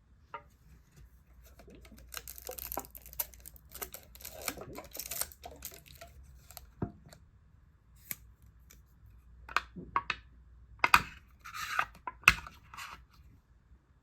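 Close-up handling noises of small objects: a stretch of rustling and scraping, then several sharp clicks and knocks in the second half.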